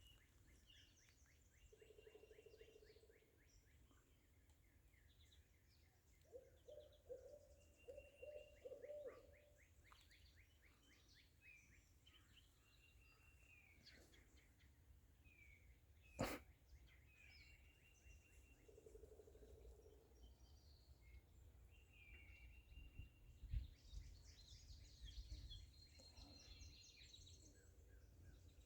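An owl hooting faintly: a single hoot about two seconds in, a quick run of hoots a few seconds later, and another hoot past the middle. Small birds chirp and trill throughout, and there is one sharp click just past the middle.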